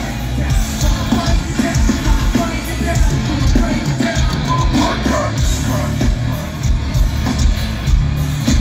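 Live rock band playing loud, with a singer's voice over guitars and drums, heard from within the audience.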